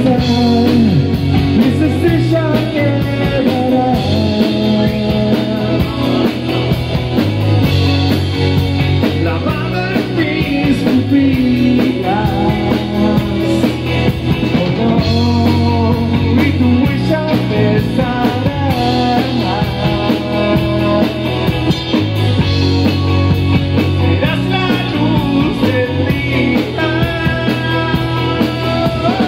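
Live rock band playing: electric guitar, electric bass and drum kit together in a steady groove.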